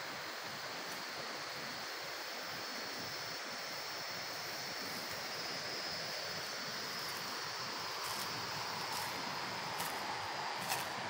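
Steady rush of a river running over rocks, growing slowly louder as it comes closer. A faint steady high tone sits above it, and a few sharp clicks sound near the end.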